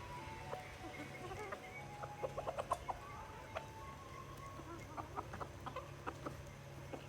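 A flock of chickens clucking, with many short overlapping calls that come thickest about two to three seconds in, over a steady low hum.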